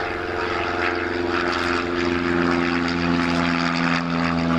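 Piper PA-28 single-engine propeller light aircraft flying overhead on its climb-out, a steady piston-engine and propeller drone that gets a little louder, its pitch sinking slightly as it passes.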